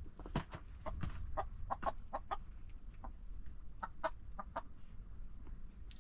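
Hens clucking in runs of short, repeated calls, one run about a second in and another around four seconds in.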